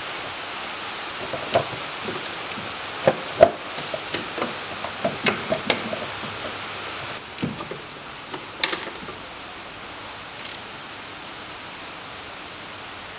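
Irregular clicks and knocks of hands handling parts in a car's engine bay, about a dozen of them between a second and a half and nine seconds in, over a steady background hiss.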